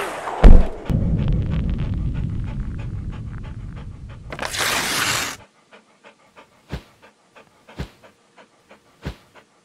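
Sound effects for a cartoon dog: a thump about half a second in, then a dog panting quickly and steadily for about four seconds, cut off by a whoosh. After that come soft ticks and three short low thuds.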